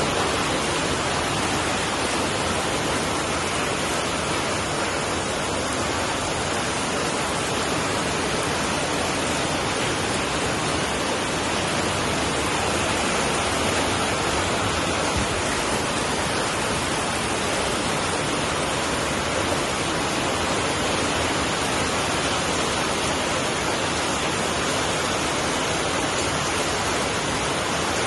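Steady, heavy rain making an even, unbroken hiss, with no separate drops, thunder or other events standing out.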